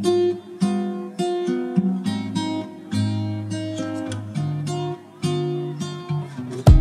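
Background music: acoustic guitar picking and strumming, each note ringing on, with a louder, more percussive part starting right at the end.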